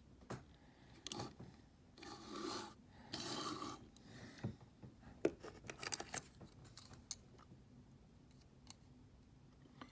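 1:64 die-cast Hot Wheels toy trucks being handled and set down on a tabletop. Soft rubbing and scraping as they are slid into place about two to three and a half seconds in, then a run of light clicks and taps.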